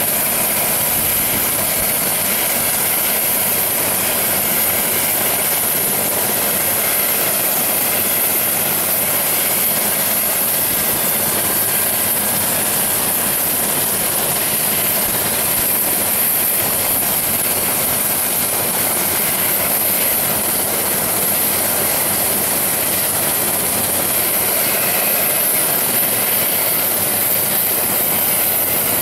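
Bell 407 helicopter running on the ground with its rotor turning: a steady high turbine whine over an even rush of rotor and engine noise, unchanged throughout.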